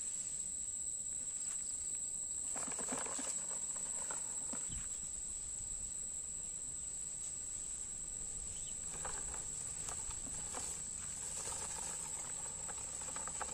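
Dry cane leaves and litter crackling and rustling under footsteps and a small plastic toy truck being dragged over them, in two spells, about two seconds in and again about nine seconds in. A steady high insect drone runs underneath.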